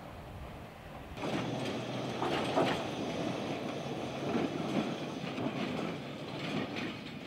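Tram running on old, crooked rails: a rumble that swells about a second in, with the wheels rattling and clanking over the track several times.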